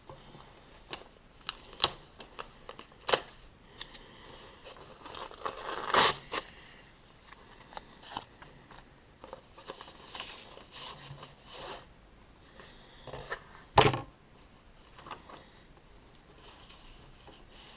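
Packaging being handled and opened: rustling and tearing with scattered small clicks, a longer rustle about six seconds in and one sharp knock near fourteen seconds.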